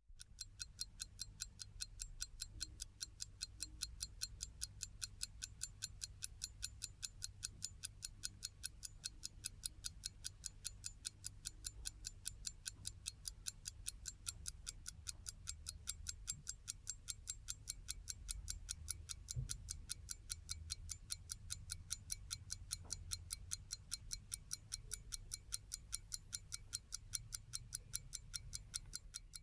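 Clock ticking, faint and evenly paced at several ticks a second, over a low hum.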